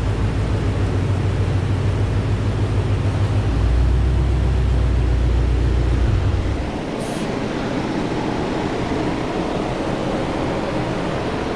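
Mustang GT's 4.6-litre three-valve V8 running steadily on a chassis dyno, with a low, even rumble and a constant rushing noise. The rumble grows louder about three and a half seconds in, then drops away about three seconds later, leaving the rush.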